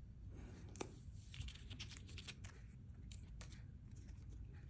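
Faint, scattered light ticks and crinkles of small handling noises, with a slightly sharper tick a little under a second in.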